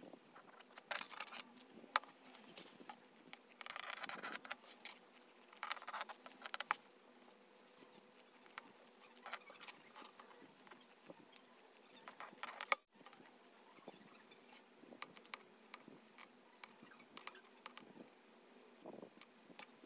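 Faint rustling of fabric and a paper sewing pattern being handled, with short clicks, and small snips of scissors cutting polyester batting in the later part.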